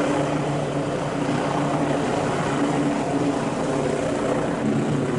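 A motor running steadily: a low droning hum with an even hiss over it.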